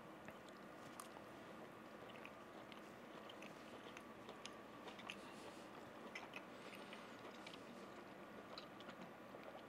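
Faint chewing of a bite of ribeye steak: soft, scattered small clicks over quiet room tone.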